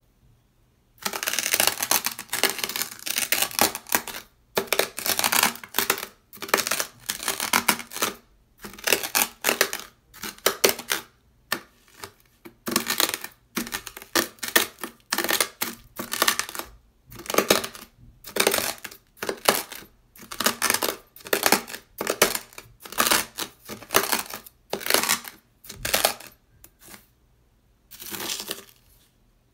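Dry beach sand on sandpaper crunching and scraping under a ceramic knife blade, in repeated strokes about a second long with short pauses between them.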